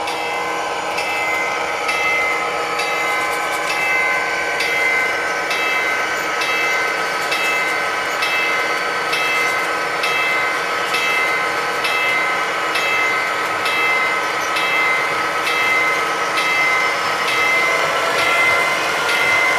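HO-scale model train rolling past with a steady whine of several tones and evenly spaced clicks from the wheels crossing rail joints. Near the end, as the locomotive draws close, its tones bend in pitch.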